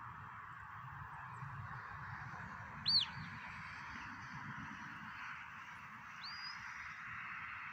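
Sheepdog handler's whistle commands: a sharp high rise-and-fall whistle about three seconds in, then a shorter rising whistle that levels off about six seconds in. Wind rumbles on the microphone throughout.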